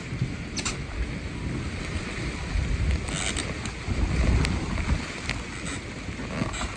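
Strong wind buffeting the microphone in gusts, strongest about four seconds in, over choppy harbour water slapping at the floating docks and moored hulls. A few light knocks are scattered through.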